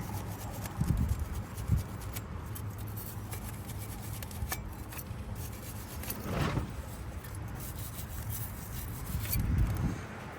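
Wire brush scrubbing the threaded ends of the hub bearing bolts on a truck's wheel hub, a continuous scratchy rubbing with a couple of short knocks about a second in.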